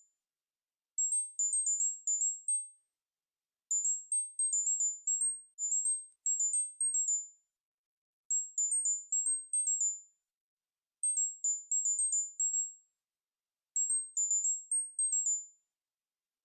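Tinnitus-relief tone track: quick runs of short, very high-pitched pure beeps, six to eight notes hopping up and down between a few close pitches. The runs repeat every two to three seconds with brief silences between.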